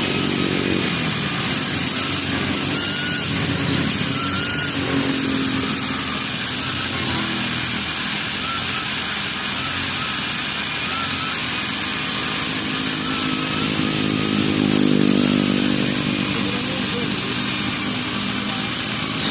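Honda four-stroke grass-cutter (brush cutter) engine running at high revs during a speed test, a steady high whine that dips briefly about four and seven seconds in before picking back up.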